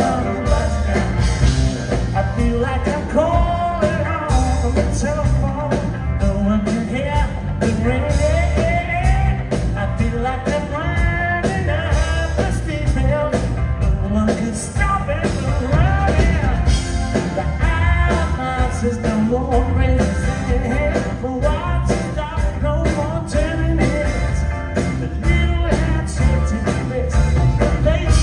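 Live rock band playing loud electric guitars, bass guitar and drums with a steady beat, and a voice singing, heard from the audience of a concert hall.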